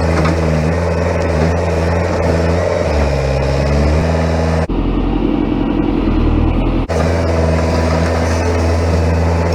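Heavy machine's engine running steadily under load. Its note changes abruptly about five seconds in and returns about two seconds later.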